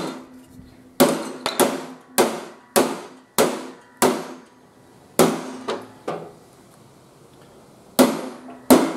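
A hand hammer striking a steel patch plate on a mower deck, about a dozen sharp blows, each with a short metallic ring. The blows come about two a second, then after a pause two more land near the end. The hammering knocks the patch edge down flush with the deck before it is tack-welded.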